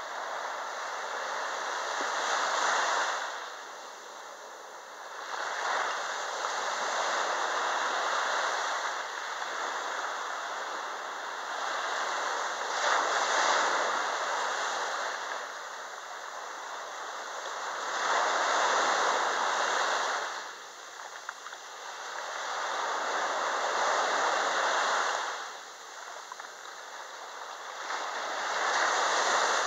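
Small waves breaking and washing up a sandy beach, the surf swelling and fading about every five to six seconds.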